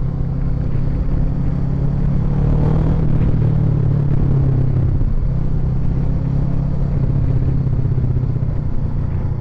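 Kawasaki Ninja 650R's parallel-twin engine running steadily. Its pitch rises a little about two seconds in, then holds.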